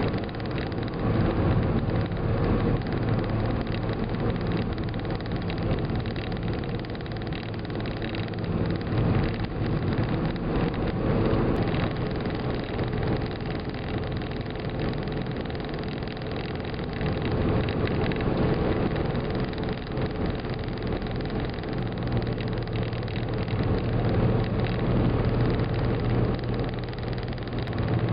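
Car cabin noise while driving at highway speed: a steady mix of engine hum and tyre and wind noise, heard from inside the car.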